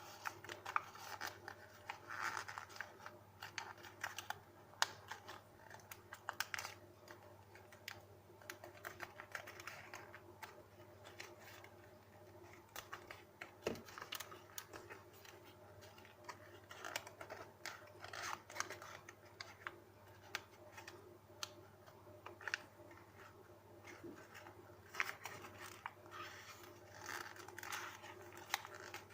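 A square sheet of paper being folded and creased by hand: intermittent rustling and crinkling, with many short, sharp scratchy clicks as the folds are pressed down.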